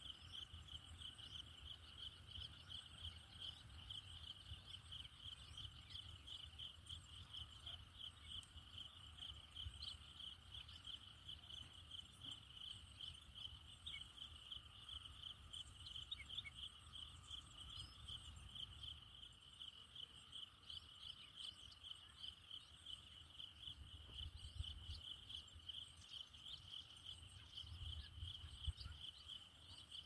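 Faint insects trilling, one high pitch pulsing rapidly and evenly without a break, over a faint low rumble.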